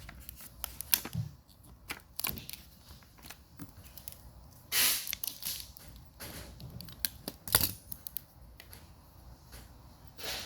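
Adhesive tape being pulled off its roll and wrapped around a battery pack: scattered crinkles and clicks, with a longer rasp of tape unrolling about five seconds in.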